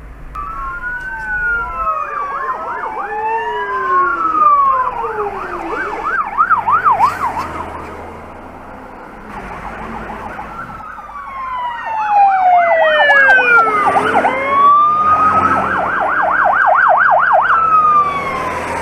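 Fire engine sirens sounding as they pass, changing between slow rising-and-falling wails and rapid yelps, with two sirens overlapping at times. They fade somewhat partway through, then come back louder.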